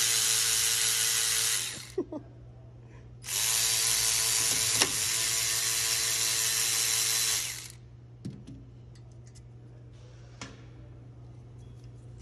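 Snap-on 14.4 V cordless 1/4-inch long-neck ratchet running in two long bursts, spinning a bolt out with a 14 mm socket: the first run stops about a second and a half in, the second runs about four seconds and stops near the middle. A few light clicks follow.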